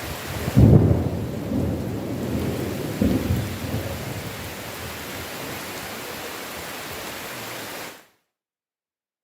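Heavy rain with a loud clap of thunder about half a second in, rolling into a low rumble with a second crack around three seconds. The rain and thunder then stop abruptly about eight seconds in.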